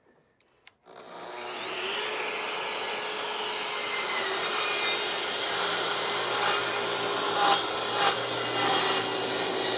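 An electric saw switches on about a second in, its motor whining up to speed, then runs steadily as it cuts through a wooden shelf panel, with a few louder peaks during the cut.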